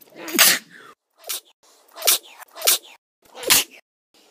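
A person sneezing, 'achoo', repeated five times in quick succession as an edited loop, with dead silence cut in between. Each sneeze is a short voiced intake falling in pitch into a sharp hissy burst, and the second one is shorter than the rest.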